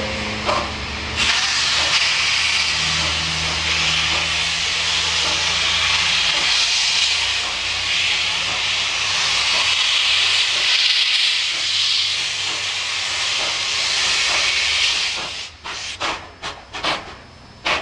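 NSW 38 class steam locomotive 3801 starting its train, venting steam in a loud, steady hiss that begins about a second in. Near the end the hiss stops and sharp exhaust beats follow, about two a second.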